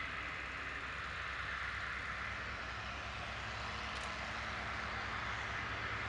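Lockheed Super Constellation's Wright R-3350 radial piston engines running just after start-up, heard from across the airfield as a steady low rumble under a broad hiss.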